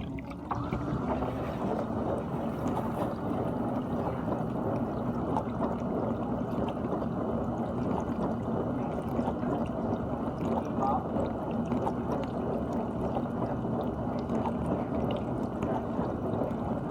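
GE dishwasher running its wash cycle: a steady rush of water spraying and sloshing inside the tub, over a steady low hum.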